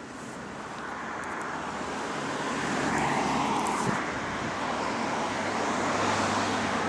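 Road traffic: a vehicle approaching and passing close by, its noise building for about three seconds to a peak, followed by a steady low engine hum.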